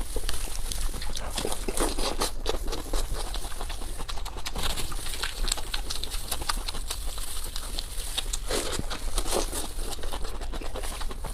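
Close-miked eating sounds: chewing and mouth smacking, a dense run of small wet clicks.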